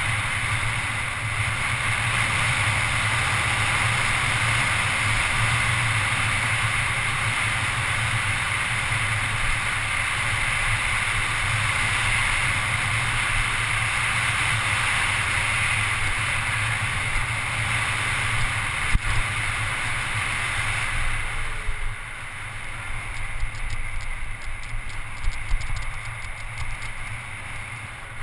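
Wind rushing over a GoPro camera on a mountain bike descending a paved road at speed, a steady loud rush. Near the end the rush eases and a rapid fine ticking comes through.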